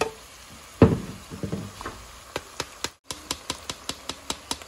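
Light repeated knocks, about four a second, from blended red chile sauce being worked through a plastic colander into a pot, with one louder thump about a second in.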